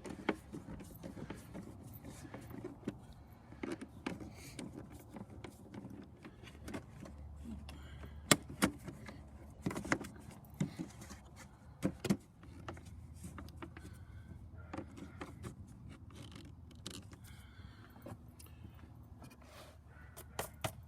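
Hand tools clinking and knocking on metal while the last bolts of the headlight and intake area are tightened, in scattered sharp clicks; the loudest come about eight and twelve seconds in.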